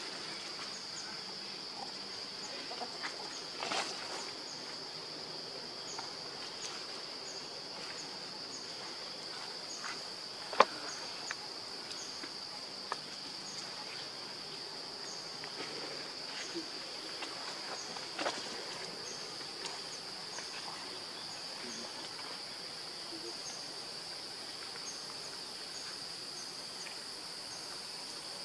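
Insects droning: a steady high-pitched whine, with short chirps repeating about once a second above it. A few sharp clicks break through, the loudest about ten seconds in.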